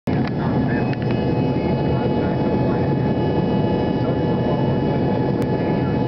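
Steady cabin noise of a jet airliner in flight: an even rush of engine and air noise with several steady hums running through it.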